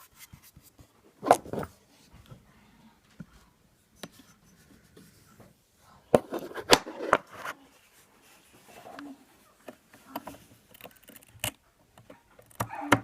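Hands working on the iMac's RAM: irregular clicks and scrapes of parts being handled, with a cluster of louder knocks about halfway through and sharp clicks near the end.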